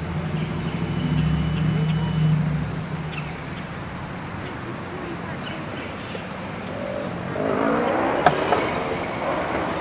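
An engine hums steadily for the first three seconds, then fades away. Later, indistinct voices talk, with one sharp click among them.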